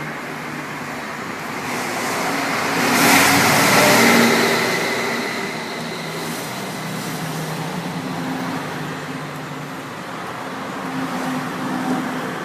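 Road traffic: a vehicle passing by, its engine and tyre noise swelling to a peak about three to four seconds in and then fading into steady traffic hum.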